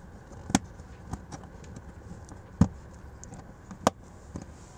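Sharp plastic clicks and taps as a Tesla Model 3 footwell lamp housing is handled and pressed back into its hard plastic trim panel: three louder clicks among fainter ticks, the loudest near the middle.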